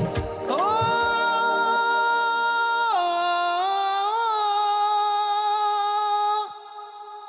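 A single voice-like note, sung or synthesized, held for about six seconds. It slides up into pitch, drops a step about halfway through and stops abruptly. The last beat of the song's music is heard just before it.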